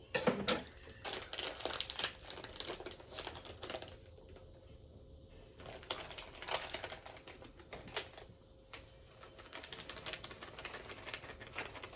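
Chip bag crinkling and crackling as it is opened and handled, in irregular runs of sharp crackles with a couple of brief pauses.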